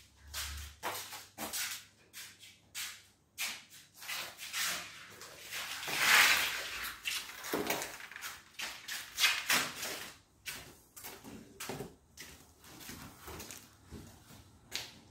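Footsteps and scuffs on a hard, dusty floor, mixed with rustling from the handheld phone, coming as irregular short knocks several times a second. A louder, longer scrape comes about six seconds in.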